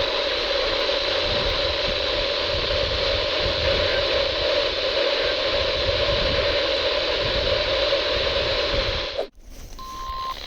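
Steady radio static hiss from a weather radio receiver, with no voice coming through. The static cuts off abruptly about nine seconds in, and a brief faint steady tone sounds near the end.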